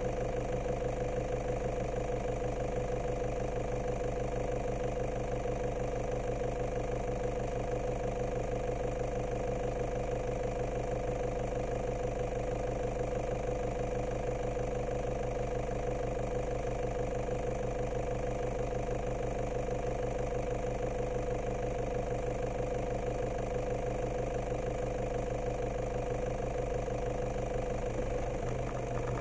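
A vehicle engine running at a steady low speed, with an even hum that does not rise or fall.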